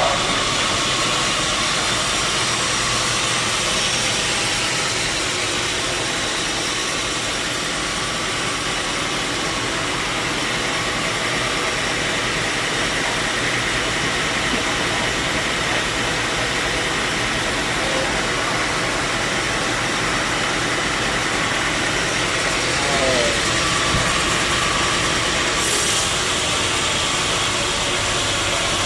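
Sawmill machinery running steadily, a dense mechanical din with an engine-like drone. A low hum underneath drops out at the start and comes back about three quarters of the way through.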